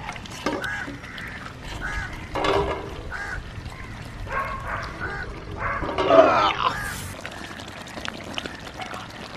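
Fowl calling, a run of short repeated calls about half a second apart, the loudest about six seconds in.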